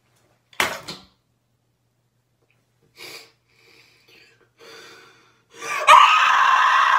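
A young woman takes a few short, sharp breaths, then lets out a loud, raspy scream from about five and a half seconds in.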